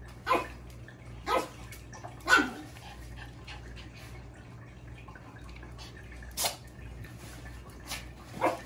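A poodle barking: five short single barks, three about a second apart, then a pause and two more.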